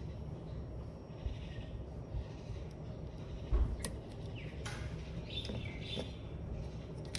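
Birds chirping in the background over a steady low rumble, with a few faint scattered clicks and a dull thump about three and a half seconds in.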